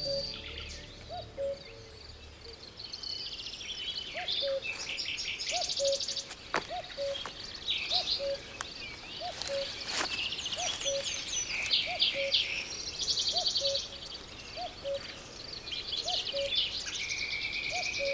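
Woodland birdsong: several small birds chirping and trilling, with a short low note repeated steadily about once a second and a faint high insect buzz. A held whistle comes in near the end.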